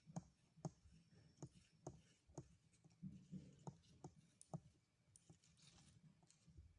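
Faint irregular clicks and taps of small plastic parts being handled, about two a second, while a battery is being fitted into a newly unboxed microphone set.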